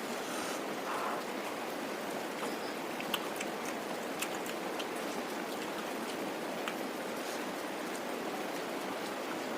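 Steady hiss of falling rain, with scattered small clicks and ticks over it.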